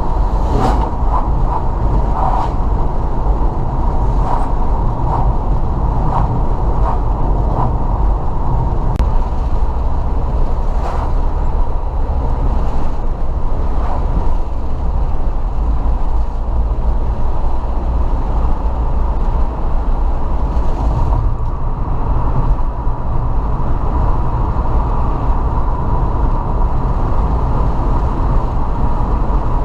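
Steady rumble of a car on the move, with road and engine noise and a few faint clicks and knocks scattered through the first half.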